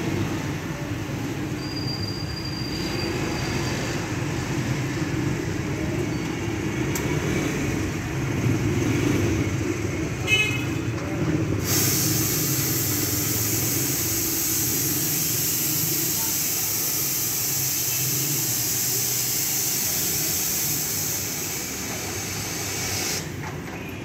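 Expobar two-group espresso machine's steam wand opened about halfway through, blowing off steam with a loud, steady hiss that stops shortly before the end. Before it, a low steady rumble.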